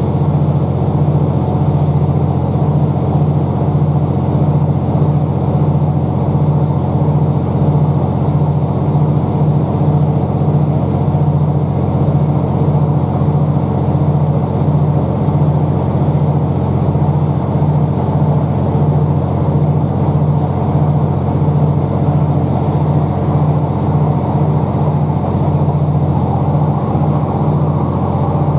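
Underfloor MAN D2876 straight-six diesel generator set of a Class 769 bi-mode train running steadily while the train travels at speed, heard inside the passenger coach above it: a deep drone with a regular throb about twice a second, over the rumble of the wheels on the rails.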